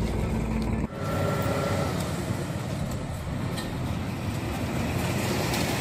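Steady road traffic noise: passing vehicles make an even rush with a low rumble. It starts abruptly about a second in, replacing a steady low hum.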